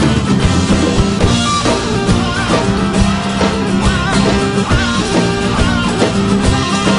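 Rock-style soundtrack music with guitar and drum kit and a steady beat.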